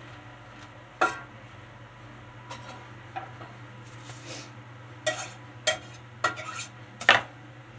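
A spatula and a frying pan clattering on a gas stove as a frozen roll of sausage is worked in the pan. There are a handful of sharp knocks, the loudest about a second in and again near the end, with a cluster in the last few seconds, over a steady low hum.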